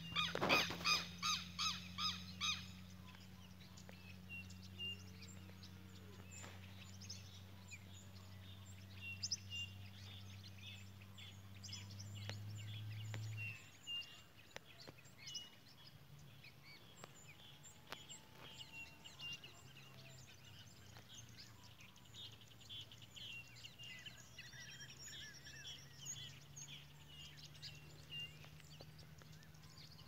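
Many wild birds chirping and singing, with scattered short calls. A loud call repeats about three times a second through the first two seconds. A low steady hum runs underneath and stops about halfway through.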